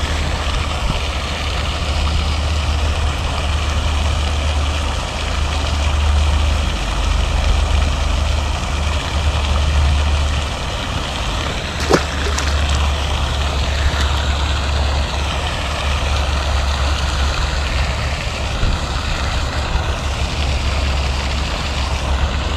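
A steady low rumble and hiss of wind buffeting the microphone, swelling and easing at times. About halfway through, a short splash as a released trout hits the water.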